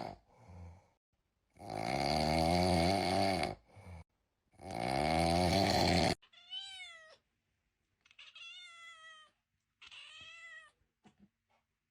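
Cat meowing: two long, loud, wavering yowls, then three shorter, quieter, higher meows that each rise and fall in pitch.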